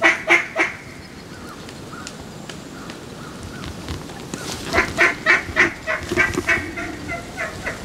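Mallard-style duck quacks: three loud quacks at the start, then a quick run of about a dozen, around four or five a second, that fades away toward the end.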